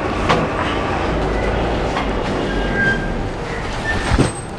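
Handloom Dhakai Jamdani saree rustling and flapping as it is unfolded and shaken out, a continuous rushing noise. There is a sharp knock about a third of a second in and another near the end.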